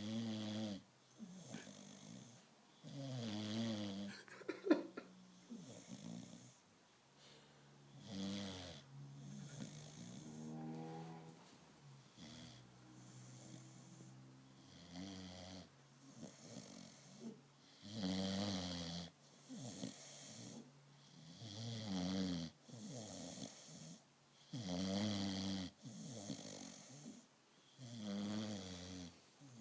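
American Bulldog snoring in its sleep, with loud snores every three seconds or so and a softer, quieter stretch of breathing in the middle. A short sharp click about five seconds in.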